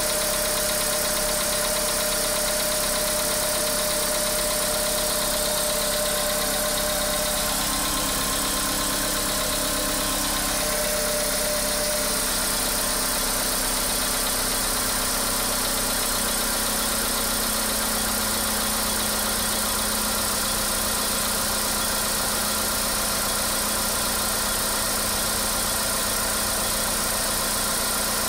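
Car engine idling steadily with a knock in the engine.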